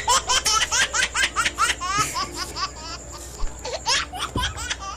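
High-pitched laughter in a rapid string of short rising peals through the first two seconds, then again briefly near the end.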